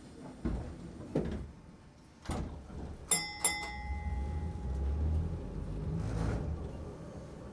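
Toden Arakawa Line tram's bell striking twice, ding-ding, the signal to depart, after a few knocks. The low rumble of the tram's motors then builds as it pulls away from the stop.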